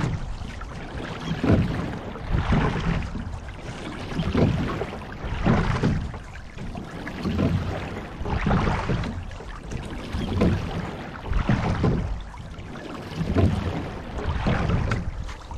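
Water rushing along the hull of a rowing shell and splashing at the oars, swelling and easing in a steady rhythm with each stroke, a surge every second or two.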